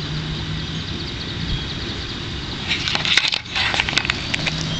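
A burning stuffed toy dog crackling in the fire over a steady hiss, with a quick run of sharp snaps and pops about three seconds in.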